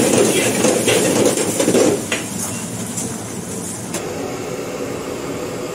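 Stir-frying in a wok: a metal spatula scraping and tossing filling against the pan, loud for about two seconds, then fading. From about four seconds in, a steady kitchen hum.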